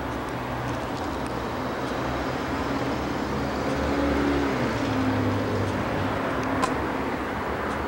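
Steady outdoor traffic noise, with a motor vehicle going by about four to five seconds in, its engine note dipping as it passes. A single short click near the end.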